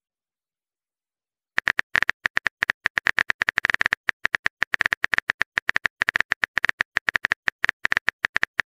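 Keyboard typing sound effect: a fast, uneven run of short key clicks, several a second, starting about a second and a half in as a text message is typed out.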